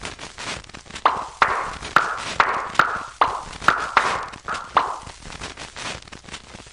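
Cartoon sound effect: about ten sharp, evenly spaced knock-like hits, each with a short ringing tail, at roughly two to three a second.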